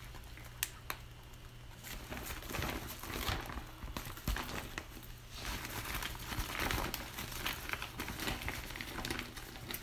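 Thin clear plastic sheeting crinkling and rustling in irregular bursts as hands gather and shape it over a form, with a couple of sharp ticks in the first second.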